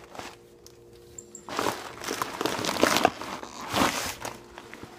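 Paper towel crumpling and rustling as it is handled, starting about a second and a half in and dying down near the end.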